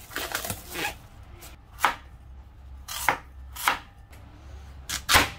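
Plastic cling film crinkling as it is peeled off a half pumpkin, then a Chinese cleaver chopping through the pumpkin onto a wooden cutting board: about five sharp chops, the last two close together and loudest.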